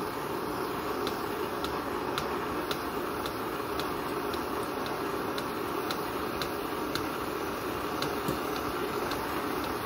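1951 Coleman M1950 gasoline pressure stove burning with a steady hiss from its burner while its tank is hand-pumped, with a light click about twice a second from the pump strokes.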